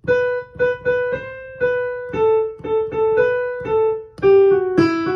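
Piano playing the right-hand melody of a beginner exercise in G major, one note at a time, at about three notes a second.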